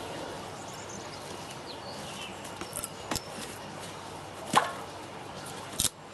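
A few short sharp wooden knocks and clatters, the loudest about halfway through, as pieces of wood are handled, over a steady background hiss.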